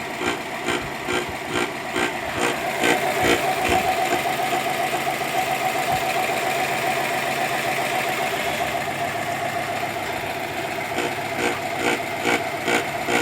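Rhythmic knocking, about two a second, from the right-side engine mount of a Subaru Exiga's EJ20 turbo engine as the front of the car is rocked up and down by hand; this knock is the abnormal noise being traced to that mount. A steady engine hum runs underneath, and the knocking stops for a while in the middle and starts again near the end.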